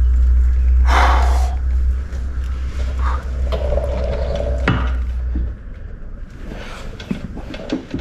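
Adjustable wrench working the rear axle nut of a Harley-Davidson Softail: short scrapes and a sharp knock of tool on metal. A steady low rumble runs under them and stops about five and a half seconds in.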